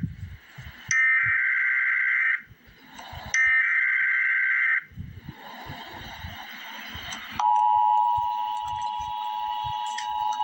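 Emergency Alert System tones: two harsh, screechy digital data bursts of about a second and a half each. These are the SAME header that encodes the alert. About seven seconds in, the steady two-tone EAS attention signal starts and holds.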